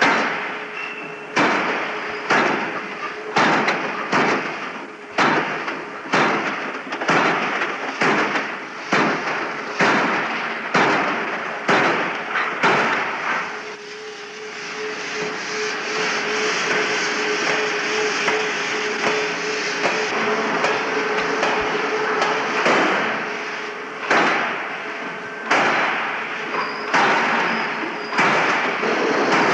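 Counterblow forging hammer striking hot metal in a forge, heavy blows about once a second. For several seconds in the middle the blows give way to a steady hiss as a spray lance plays over the dies, then the blows resume.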